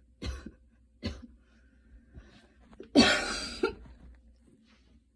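A woman coughing after a fast run: two short coughs, then a louder, longer cough about three seconds in, ending in a quick second catch.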